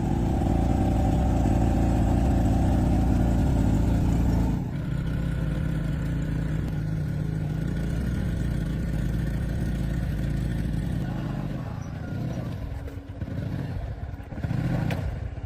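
An engine running steadily, louder for the first four and a half seconds, then a little quieter; near the end its level wavers and breaks up.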